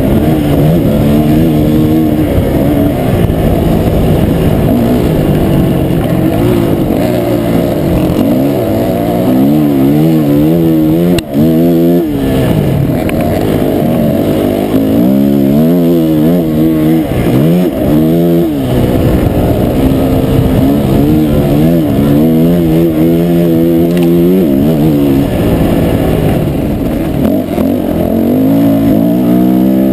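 Dirt bike engine heard from on the bike, revving up and down again and again as the rider works the throttle and gears around a motocross track. It sounds muffled, with one sharp knock about eleven seconds in.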